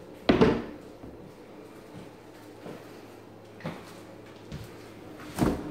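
Kitchen cabinet doors and drawers being opened and shut. There is a sharp knock about a third of a second in, two lighter knocks in the middle and another firm knock near the end, over a faint steady hum.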